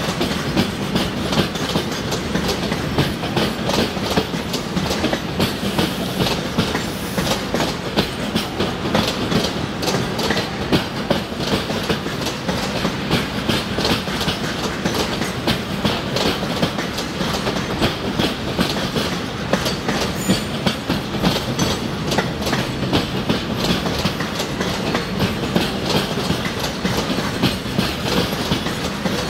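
Container freight wagons rolling past, their wheels clattering steadily over the rail joints in a fast, unbroken stream of clicks over a low rumble.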